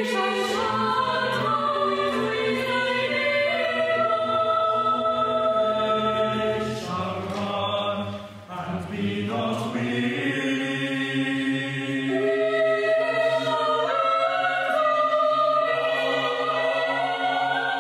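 A mixed choir singing unaccompanied in sustained, shifting chords, with a short break about halfway through before the voices come back in.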